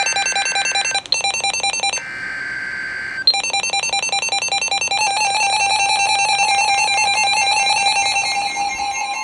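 Emergency Alert System tones: a loud electronic alert beeping in rapid pulses, broken about two seconds in by a second-long burst of screeching data tones, the coded SAME header of the warning, after which the rapid beeping resumes and holds.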